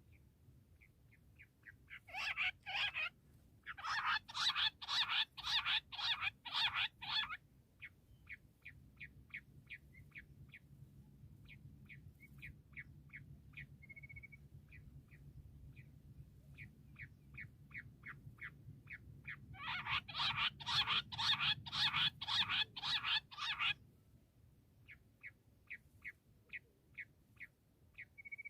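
Bush quail calling: a run of short, evenly spaced notes, about three a second, that twice breaks into loud bursts of fast chattering calls, one a few seconds in and a longer one about two-thirds of the way through.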